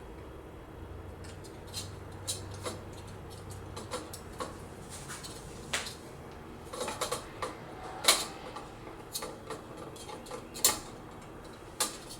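Scattered light clicks and metallic taps of a Noctua NH-D15 tower CPU cooler being handled and set down onto its mounting studs, with two sharper knocks in the second half.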